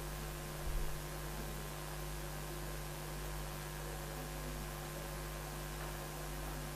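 Steady electrical mains hum with faint hiss, with a brief low thump under a second in.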